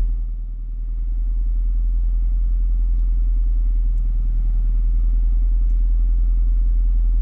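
Car engine idling, heard as a steady low rumble that dips briefly about half a second in.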